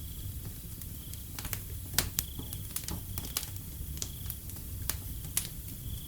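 Wood fire crackling with irregular sharp pops, the loudest two about 2 seconds in, over a low steady rumble of the flames. Crickets chirp in short high bursts about once a second.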